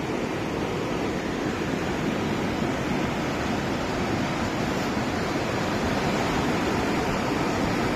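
A large river rushing steadily, a constant even roar of water.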